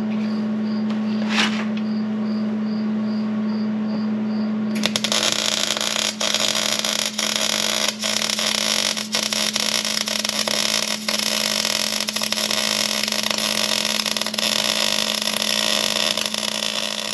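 Shop machinery: a steady hum with faint regular beeps, then about five seconds in a loud, even hiss starts and keeps going.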